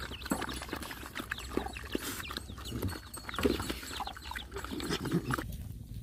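Several dogs eating from a metal bowl and a plastic bucket: irregular slurping and chewing noises, which stop suddenly near the end.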